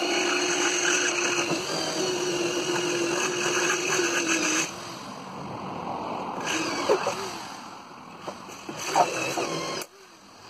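Power drill running steadily under load as it bores down through the metal roof-rack cross members, then running quieter and more unevenly with a couple of short squeals before stopping abruptly near the end.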